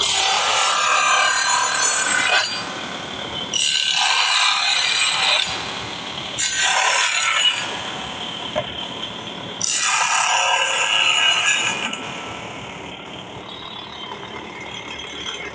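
Table saw cutting wooden boards: about four loud cuts of one to two seconds each, with the blade running free between them and after the last one.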